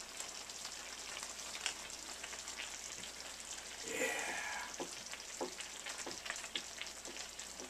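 A pan of tomato-based jambalaya simmering: a steady faint sizzle with small scattered pops. Light handling and scraping noises as butter is spread on crusty French bread, with a brief louder rustle about four seconds in.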